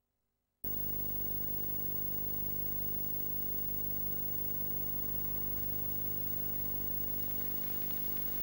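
Steady electrical hum with tape hiss on an old videotape soundtrack, starting just under a second in.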